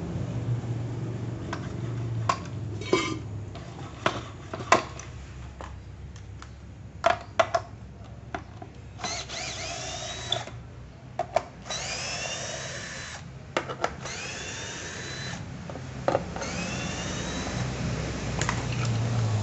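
Handheld cordless drill running in four short bursts of a second or two each, each starting with a rising whine as the motor spins up, against a metal plate. Before them come scattered knocks and clinks of metal parts being handled.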